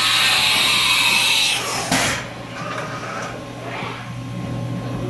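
Haas VF-2 CNC vertical mill's umbrella tool changer swapping a tool: a loud hiss of air blowing through the spindle while the tool is released, cut off just before two seconds in by a sharp clunk as the new tool is clamped. Quieter mechanical shuffling follows as the carousel moves back.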